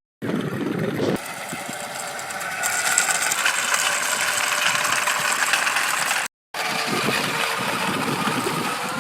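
Small electric motor of a miniature toy vehicle whirring, with a light rattle, the sound turning higher about a second in. It is cut off abruptly for a moment about six seconds in.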